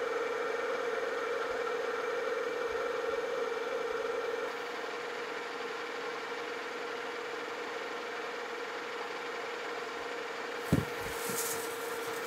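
Metal lathe running with a steady whine from its drive, turning a large metal workpiece. Near the end comes a sharp knock, then a short hiss as the tool starts the final finishing cut.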